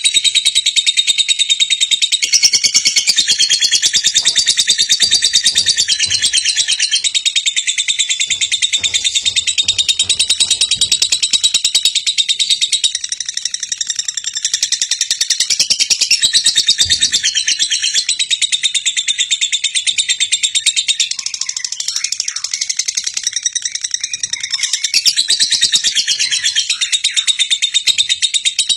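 Dense, continuous high-pitched chirping of many birds, with one thin whistling tone that wavers in pitch above the mass.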